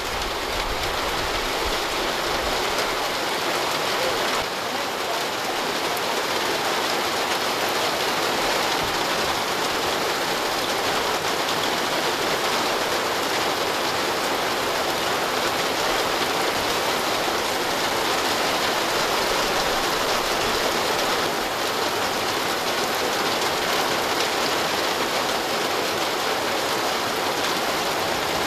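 Heavy rain pouring down onto wet ground, a steady, even hiss.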